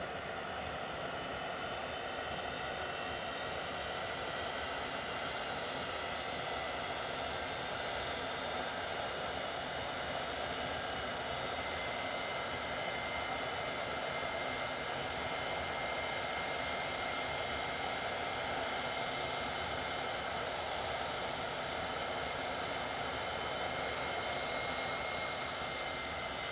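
English Electric Lightning's twin Rolls-Royce Avon turbojets running at ground idle: a steady jet whine over a rushing hiss, one high tone growing stronger about halfway through.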